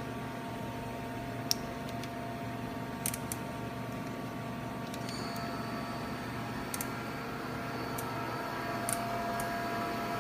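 Mighty Comet VMC-750P CNC vertical machining center running, a steady whine over a hum. About five seconds in a higher whine joins, and a few sharp clicks sound through it.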